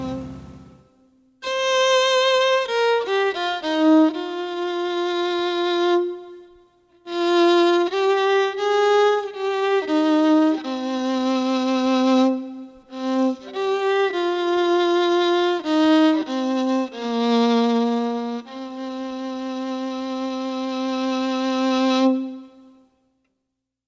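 Solo fiddle playing a slow melody, one line of notes with vibrato and short pauses, ending on a long held note that fades away near the end.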